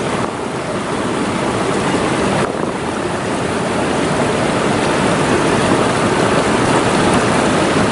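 Steady rushing of a flowing river, an even noise without breaks that grows slightly louder a few seconds in.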